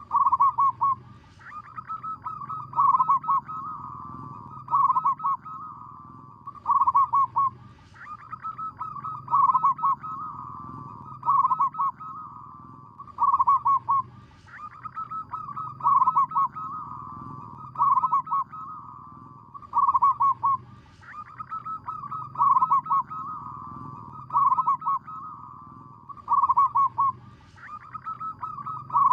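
Zebra dove cooing: a phrase of quick staccato notes about every two seconds, each loud at the start and trailing into a softer, rolling coo, repeating steadily.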